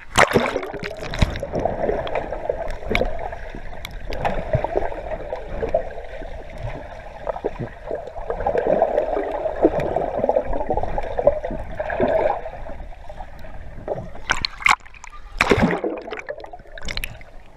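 Muffled gurgling and rushing of pool water as a swimmer swims across underwater, with a sudden splash at the start as he goes in. A few louder splashes come near the end.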